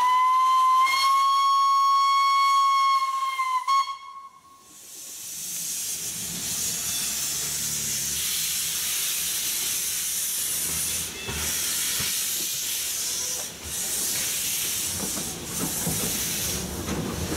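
Whistle of the Blanc-Misseron 020+020 Mallet steam tank locomotive blowing one long steady blast for about four seconds, then cutting off. After it, steady steam hiss and low rumble as the locomotive and its wagons run along.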